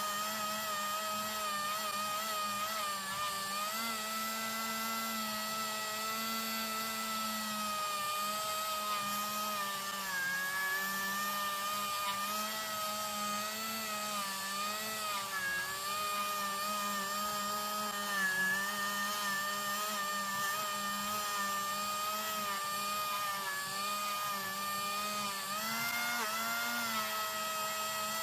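Small handheld electric rotary tool running continuously, its motor whine wavering slightly in pitch.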